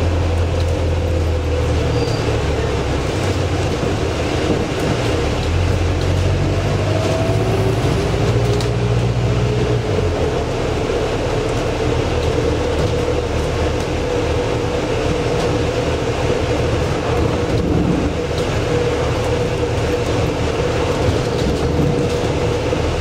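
Volvo B5LH diesel-electric hybrid double-decker bus heard from inside the cabin while under way: a steady drivetrain hum with a thin whine, road noise and body rattle. The low hum shifts in pitch during the first ten seconds.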